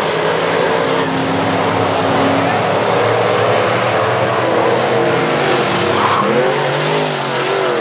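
Limited Sportsman dirt-track race cars running at racing speed, their engines loud and revving steadily. About six seconds in, the engine pitch rises and falls as cars pass.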